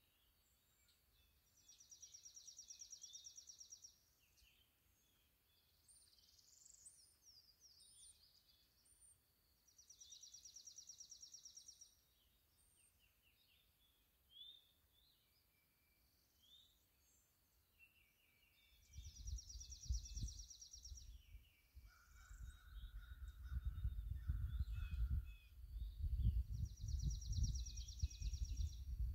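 Songbirds singing: one repeats a high, fast trill of about two seconds four times, roughly every eight seconds, among scattered short chirps. A low rumble comes in about two-thirds of the way through and grows louder than the birds.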